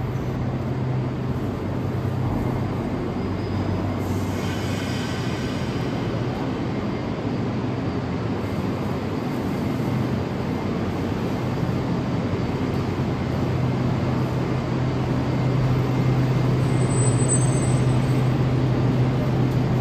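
Echizen Railway electric train standing at a station platform, its equipment giving a steady low hum over a general rumble and hiss.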